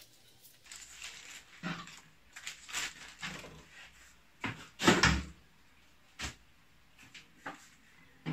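Paper and plastic packaging rustling while a boxed car audio capacitor is unpacked, then a heavy thud about five seconds in and a sharp knock about a second later, with a few light knocks of the unit being handled on a table.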